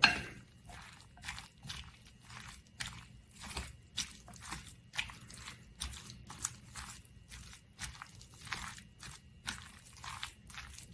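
Steamed onions being stirred and mashed with flour and apple cider vinegar in a bowl: a run of short, wet squishing and scraping strokes, about two a second.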